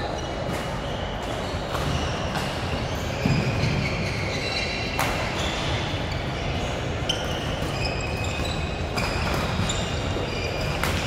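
Badminton rally in a sports hall: sharp racket strikes on the shuttlecock every second or two, with short high shoe squeaks on the court floor and a steady hall noise behind.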